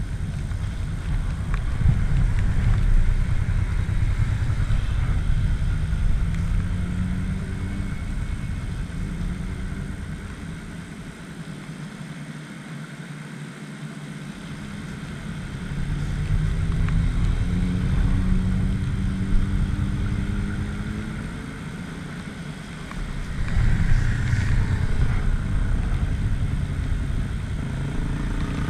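Motorcycle engines running, with several motorcycles riding past one after another; their engine notes rise as they accelerate through, then the sound eases off and builds again.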